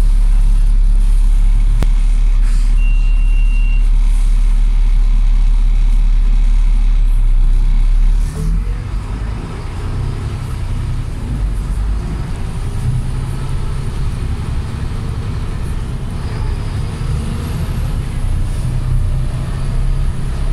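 Volvo B7TL double-deck bus's 7.3-litre diesel engine heard from inside the bus: a steady low drone that changes abruptly about eight seconds in to a less even engine note that rises and falls as the bus drives on. A brief high beep sounds about three seconds in.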